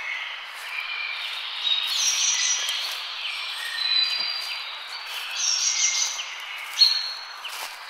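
Forest birdsong: many birds chirping and whistling over one another above a steady background hiss, with one loud sharp call near the end.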